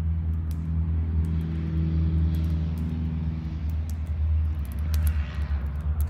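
An engine running steadily: a low, level hum with pitched overtones that grow stronger through the middle and ease off towards the end.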